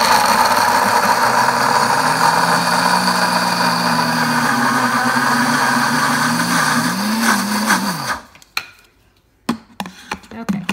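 Pampered Chef Deluxe blender on its grind setting, the motor running loud and steady as the blades pulverize roasted hazelnuts into a dry meal. The motor's pitch wavers near the end and it stops about eight seconds in, followed by a few scattered clicks and knocks.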